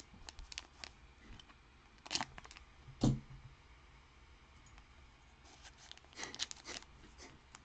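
Trading cards being handled and set down on a table: scattered soft clicks and light taps, with two firmer taps about two and three seconds in and a run of quick clicks and rustles near the end.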